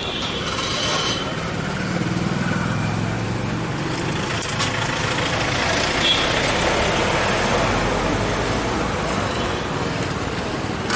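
Street traffic: a motor vehicle's engine running close by over steady road noise.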